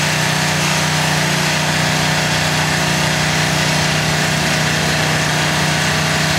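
Engine of a bucket truck's aerial lift running at a steady idle, an even hum with no change in speed.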